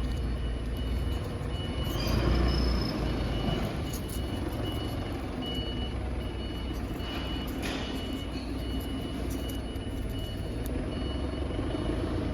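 CNC router running, a steady machine noise with a low hum, while a high-pitched beep repeats about once a second.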